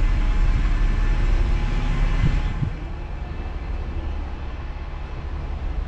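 Low outdoor rumble of traffic, strongest in the bass, with two soft knocks a little after two seconds in; the rumble then drops to a lower level.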